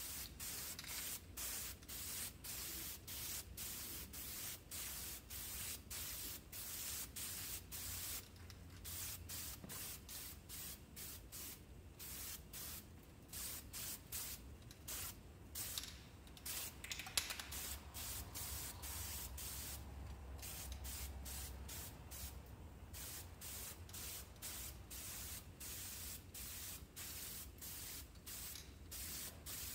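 Aerosol spray paint can spraying in short hisses, about two a second, with a few longer pauses between passes, as the car's engine bay is painted.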